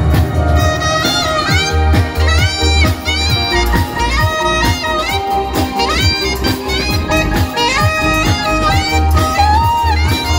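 Live band: an alto saxophone plays the melody with sliding, bending notes over electric bass, drum kit and percussion keeping a steady beat.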